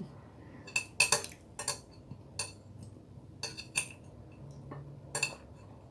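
Cutlery clinking against a plate as someone eats, with a string of irregular sharp clinks.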